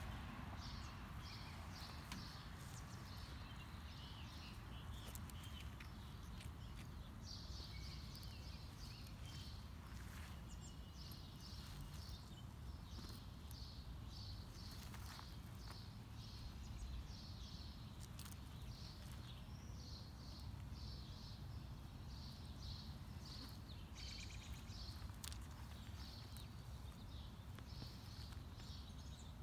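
Birds chirping faintly, a run of short high notes repeating again and again, over a low steady outdoor rumble.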